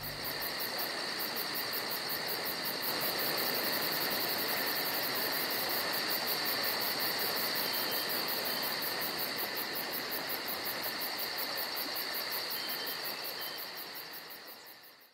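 Nature ambience: a steady, high-pitched chirring over an even hiss, fading out near the end.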